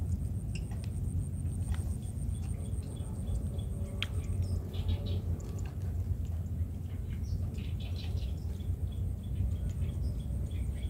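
Small birds chirping on and off over a steady low rumble, with a faint high, rapidly pulsing tone that stops about four and a half seconds in and comes back near the end.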